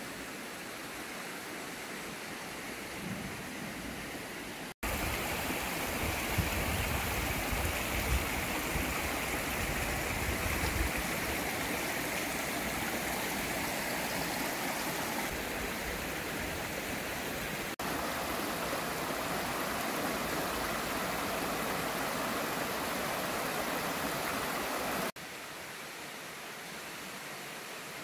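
Shallow mountain stream running over rocks as a steady rushing, louder from about five seconds in and dropping back to a fainter outdoor hiss near the end.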